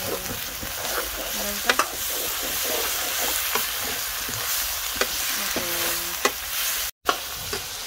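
Chunks of buff meat sizzling in hot oil in a metal kadai, stirred with a metal spoon that scrapes and clinks against the pan several times. The sound drops out for an instant near the end.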